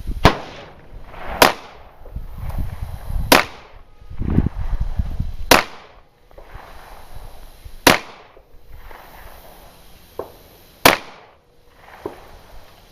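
Semi-automatic 9mm TEC-9 pistol firing six single shots, spaced unevenly one to three seconds apart. Fainter shots follow near the end.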